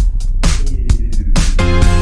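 Electronic background music with a heavy bass and a strong beat about twice a second.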